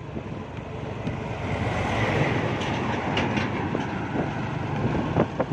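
Heavy flatbed semi-trailer truck passing close by: engine and tyre noise growing louder over the first two seconds, with short knocks and rattles from the trailer around the middle and again near the end.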